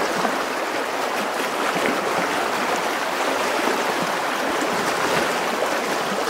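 Fast, shallow river rushing and splashing over a stony riffle: a steady, even rush of water.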